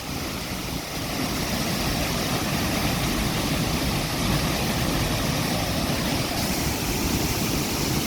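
Steady roar of a waterfall's falling water, an even rushing noise without breaks.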